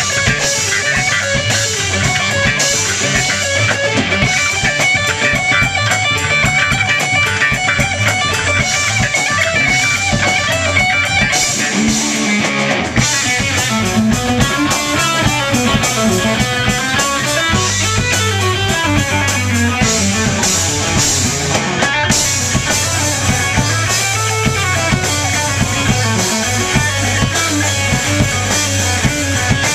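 Live rock band playing an instrumental jam on electric guitar, bass guitar and drum kit.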